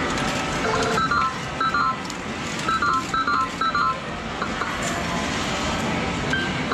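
Sigma Red Dog Poker medal-game machine giving about five short stepped electronic beeps as medals go in and a hand is dealt. Under them runs the steady din of a medal-game arcade.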